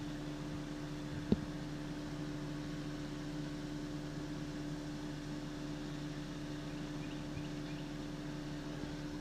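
Steady low machinery hum from the sawmill, with one sharp click about a second in.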